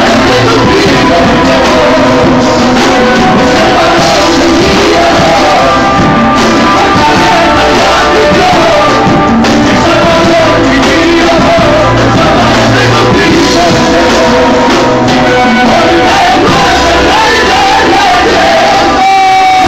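Live worship music, loud: a men's choir singing into microphones, backed by electric guitar and keyboard.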